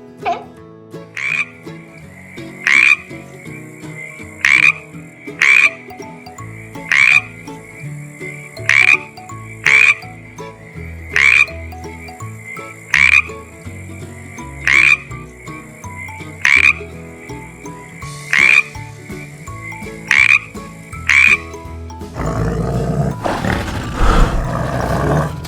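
Frog calling: a run of about twenty short croaks, roughly one a second. Near the end the croaks stop and a loud, rough rumbling noise takes over.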